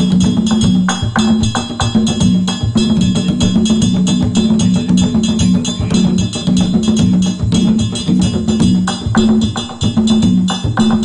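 Live band playing Afro-Caribbean music: a repeating low bass line under hand percussion, with sharp, evenly spaced clicks keeping the rhythm.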